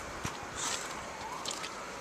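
Footsteps crunching in deep snow, a few scattered crunches, with a faint whine in the background that rises and then holds steady.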